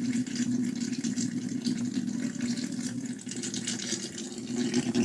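Plasma electrolysis cell with its electrode glowing under water, running with a steady low buzz and a crackling, sizzling hiss as the water boils off as steam.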